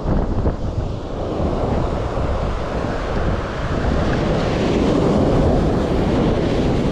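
Ocean surf washing onto the beach in a steady rush, with wind buffeting the microphone.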